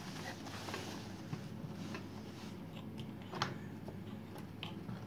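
Faint handling sounds at a sewing machine that is not stitching: a few scattered light clicks as the embroidery hoop and fabric are moved, over a low steady hum.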